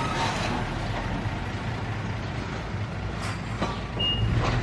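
Dump truck engine running with a steady low drone. About four seconds in it grows louder and the truck's high-pitched reversing alarm starts beeping.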